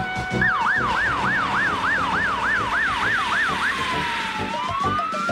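Fire engine siren yelping, its pitch sweeping quickly up and down about three times a second, then switching to a slower wail that dips and climbs again near the end.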